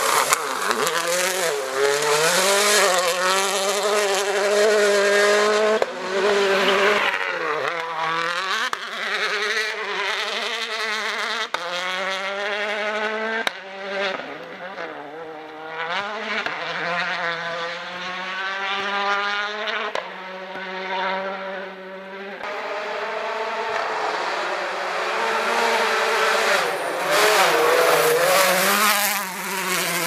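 World Rally Car 1.6-litre turbocharged four-cylinder engines at full throttle as several cars pass one after another. The revs climb and drop again and again through rapid gear changes and lifts, with a hiss of tyres on loose gravel.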